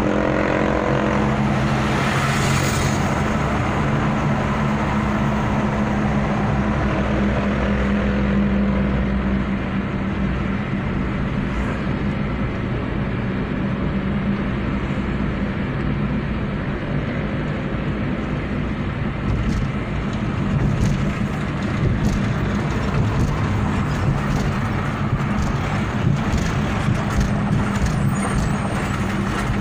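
Car engine and road noise heard from inside the cabin while driving: a steady low hum over tyre noise, with a brief hiss about two seconds in.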